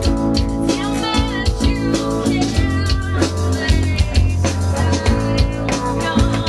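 Rock band music with drum kit and guitar, and singing.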